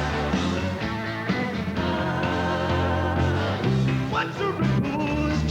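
Live rock band playing an instrumental stretch of the song between sung lines: sustained chords over bass and drums.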